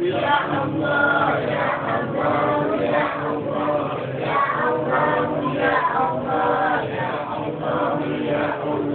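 A group of men chanting together in unison, an Islamic devotional chant (zikir) invoking Allah, with long, drawn-out phrases. Thin-sounding, as picked up by a mobile phone's microphone.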